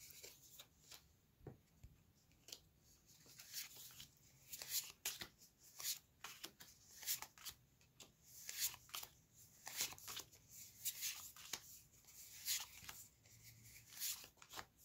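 Faint flicking of a stack of Magic: The Gathering cards as they are slid one behind another in the hand. There are soft card-on-card swishes, irregular, about one or two a second.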